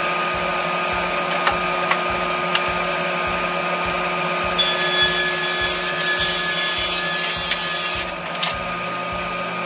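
Table saw and dust collector running steadily as a rough 1x12 board is ripped to 5 inches wide. The hiss of the blade cutting through the wood comes in about halfway through and stops near the end, with the saw still running.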